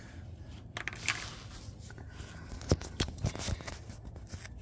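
Handling and movement noise as the camera is brought down under a van: scattered small clicks, knocks and scrapes over a low wind rumble.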